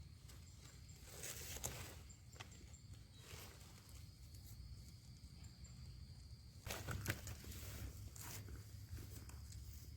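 Footsteps and rustling through dry leaf litter, in two main bouts about a second long, the second one louder, over a faint steady high insect buzz.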